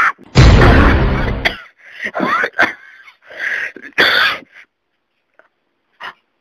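A person lets out a loud, distorted vocal outburst about half a second in, lasting about a second, followed by several short throaty vocal noises, then a near-silent stretch near the end.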